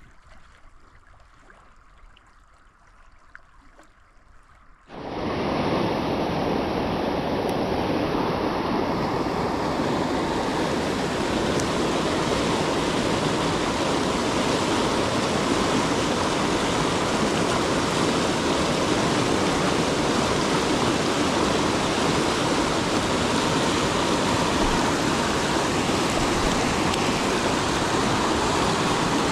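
The South Platte River rushing through whitewater rapids over boulders: a loud, steady rush of water that cuts in suddenly about five seconds in, after a few quiet seconds.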